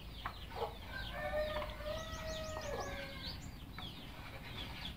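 Chickens clucking, a run of short rising and falling calls with one long drawn-out call in the middle, and two light clicks about half a second in.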